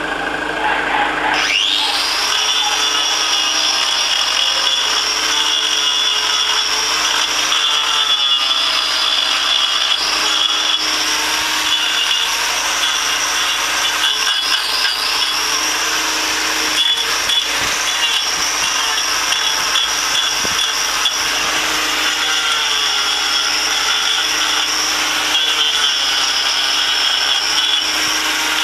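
Angle grinder with a hoof-trimming disc running and grinding cattle hoof horn: a steady high whine with a rasping texture. It starts suddenly about a second and a half in, after a lower motor hum.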